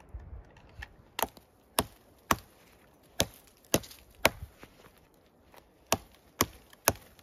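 QSP Bison fixed-blade bushcraft knife chopping into a dead branch: about nine sharp wooden chops, roughly two a second, with a pause of a second or so partway through.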